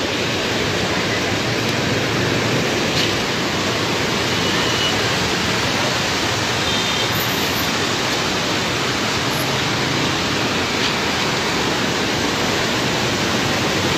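The Swat River in flood: a steady, unbroken rush of fast, muddy floodwater.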